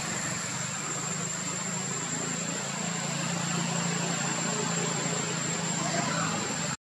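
Steady low mechanical hum like an idling engine, with a thin steady high-pitched whine above it. The sound cuts out abruptly at the very end.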